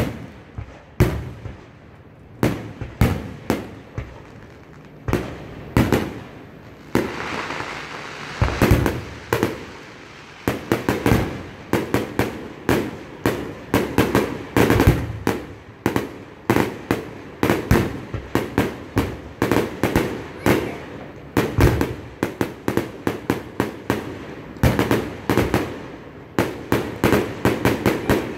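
Aerial fireworks shells launching and bursting one after another. Separate bangs come a second or two apart at first, then from about ten seconds in they run into a dense barrage of several bangs a second.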